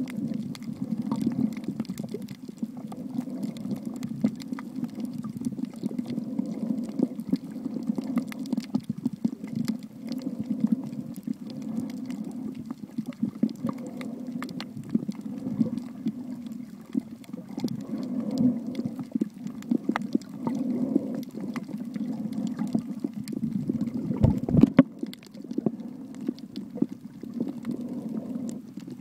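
Underwater sound picked up by a camera in the sea: a low, steady rush of moving water, dotted all through with small sharp clicks and crackles, and a louder knock about 24 seconds in.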